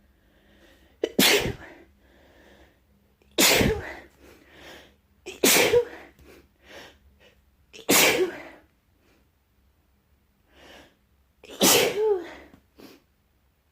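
A person sneezing five times in a row, two to four seconds apart, each sneeze a loud sudden burst with quieter sounds in between. The sneezing comes from a little cold and a tickle in the nose.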